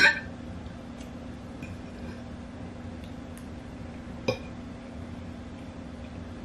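Metal fork clinking against a glass plate while scooping food: a sharp clink right at the start and another about four seconds in, with a few faint ticks between.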